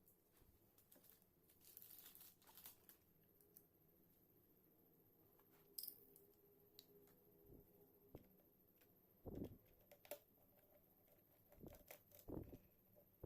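Faint handling of laptop parts: scattered small clicks, rustles and light knocks, with a sharp click about six seconds in and a few duller knocks near the end.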